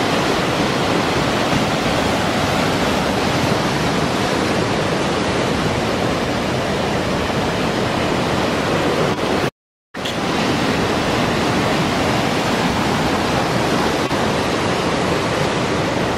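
Heavy ocean surf breaking: a dense, steady rush of crashing water, broken once by a short dead silence about nine and a half seconds in.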